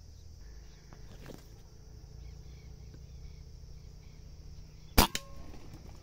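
Beeman air rifle firing once about five seconds in: a sharp crack, then a smaller knock a moment later and a brief faint ring.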